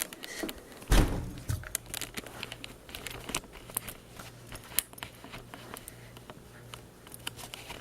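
Handling noise: rustling, crinkling and small clicks as things are moved about by hand, with one heavier thump about a second in.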